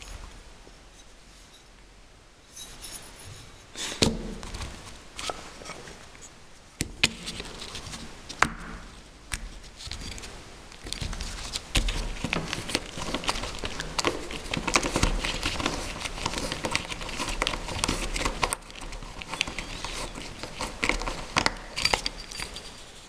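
Small parts being handled on a workbench: scattered sharp clicks and knocks, then a dense run of rapid ticking, rattling and rustling from about halfway in until near the end.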